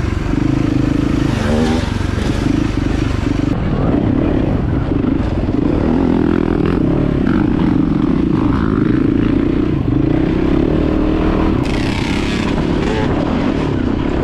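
A motorcycle-type engine running continuously, its pitch wavering up and down a little as the throttle changes.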